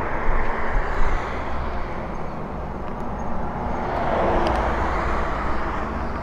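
Steady wind and road noise while riding an e-bike on a road, with a louder rushing swell about four seconds in.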